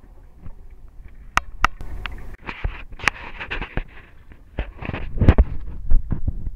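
Handling noise from a camera being moved and remounted on a boat: a series of sharp knocks and clacks with scraping and rustling on the microphone in between, heavier near the end.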